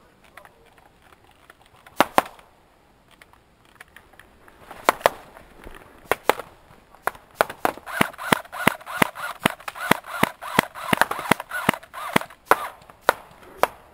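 Airsoft replicas firing single shots: a few scattered pairs of sharp pops, then a fast run of about two or three shots a second through the second half, with a wavering hum behind the run.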